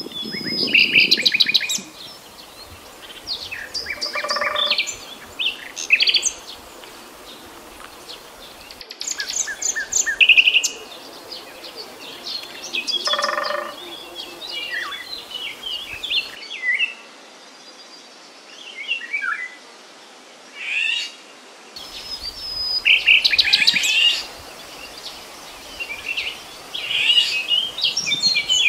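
Common nightingale singing: a run of varied phrases separated by short pauses, made of fast trills, rapidly repeated notes and gliding whistles.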